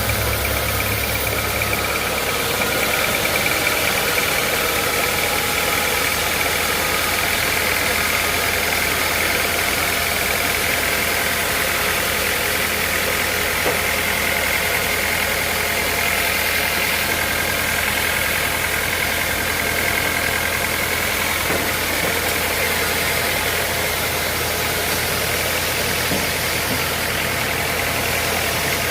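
Sawmill machinery running steadily: a constant engine-like drone with a low hum and a thin, steady high whine.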